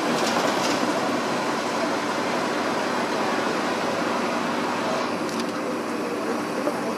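Hong Kong double-decker electric tram running slowly along its tracks, a steady running noise heard from on board the upper deck.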